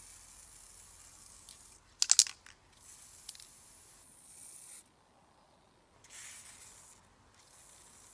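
Aerosol spray-paint can hissing in several short bursts with pauses between, and a brief loud rattle of sharp clicks about two seconds in.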